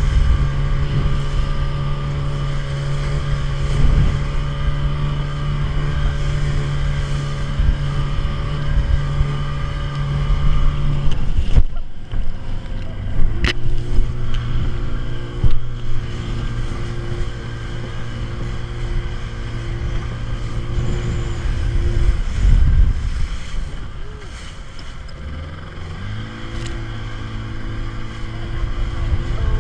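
A small motorboat's engine runs at a steady note, which drops lower about a third of the way in. It fades out for a few seconds after two thirds of the way, then picks up again near the end. A steady rush of wind and water noise sits underneath.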